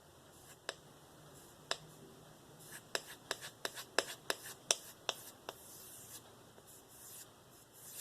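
A steel knife blade being stropped on a balsa strop loaded with diamond paste, making short, sharp stroke sounds. There are two single strokes at first, then a quick run of about three a second from around three seconds in, and it eases off after five seconds.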